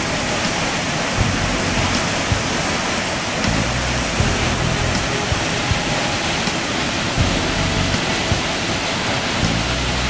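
Steady roar of a tall waterfall, the 80-metre Opasny falls of the Mutnaya River plunging into its canyon, with irregular low rumbles of wind on the microphone.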